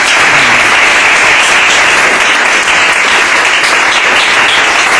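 Audience applauding: a steady, loud round of clapping.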